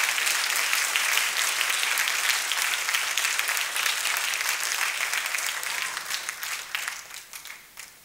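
Audience applauding, a dense patter of many hands clapping that thins out and fades away over the last two seconds.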